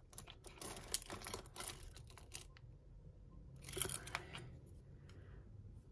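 Hands sorting through a pile of costume jewellery: faint rustling of plastic bags and card with small clicks of beads and metal pieces. It is busiest in the first two seconds, with one more brief flurry about four seconds in.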